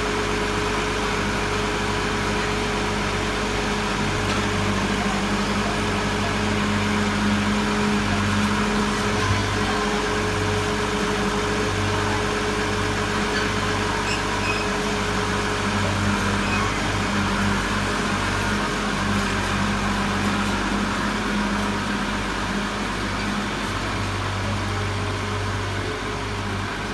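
Front-loader tractor's engine running at a steady speed as the tractor backs slowly away.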